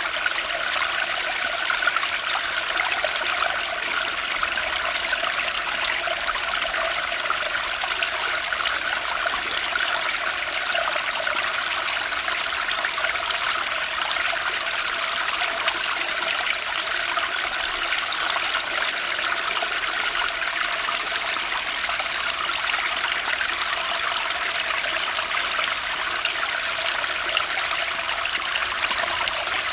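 Running water flowing steadily without a break.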